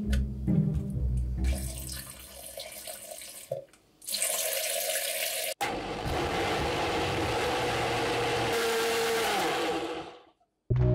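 Tefal countertop blender running with its glass jar full of pumpkin, banana and liquid, a steady motor whine over the swirling mix. Its pitch drops near the end as it winds down and stops. Background music plays at the start.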